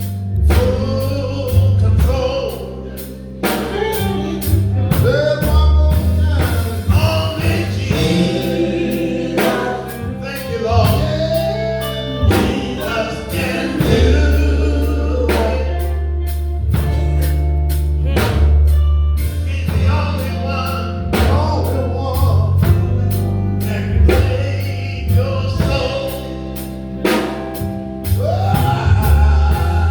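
Live gospel music: voices singing over a band with drum kit, a steady bass line and keyboard.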